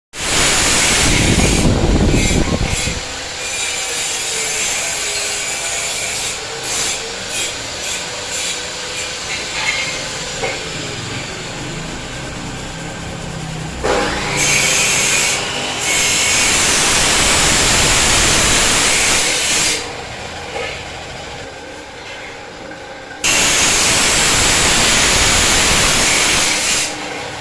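Metal workshop noise: steel being ground, cut or scraped in a continuous abrasive rasp, in several stretches that start and stop abruptly.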